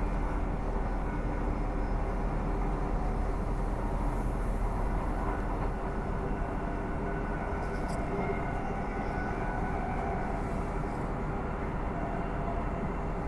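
Bombardier B-series electric multiple unit running, heard from inside the carriage: a steady rumble of wheels on track with a steady hum over it.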